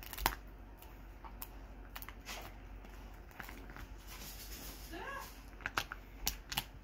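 A dog crunching and gnawing a dried pig ear, making irregular sharp crunches and clicks. There is a short squeak about five seconds in.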